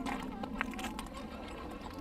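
Small electric motor of a radio-controlled scale rock crawler running with a low, steady hum that dies away within the first half second, with a few faint clicks.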